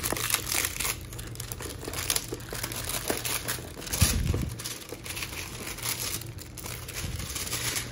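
Clear plastic shrink wrap crinkling and tearing as it is pulled off a cardboard box by hand, with irregular crackles throughout. A low knock about four seconds in as the box is moved on the desk.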